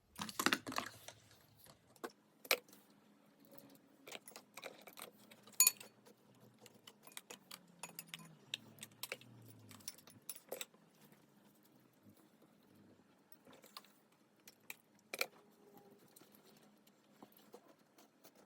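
Borax-activated homemade slime being kneaded and squeezed by hand: scattered faint sticky clicks and pops, with a dense burst of them about half a second in and a few sharper pops later.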